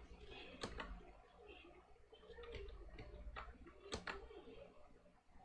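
A few faint, scattered clicks of a computer mouse and keyboard keys, the sharpest about four seconds in, over a quiet room hum.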